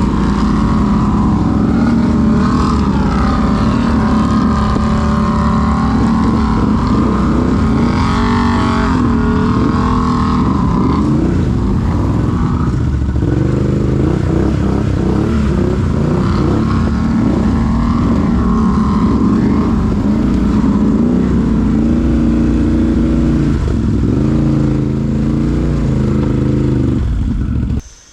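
ATV engine running as it is ridden, its pitch rising and falling with the throttle; the sound cuts off abruptly near the end.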